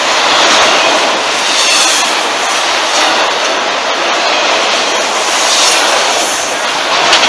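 CSX freight train of autorack cars rolling past close by: a loud, steady rush and rattle of steel wheels on the rails, with a faint high wheel squeal now and then.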